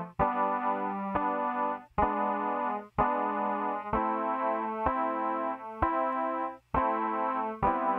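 Progressive rock song intro: a keyboard playing sustained chords, a new chord struck about once a second, some cut off by brief gaps before the next, over a steady low held note.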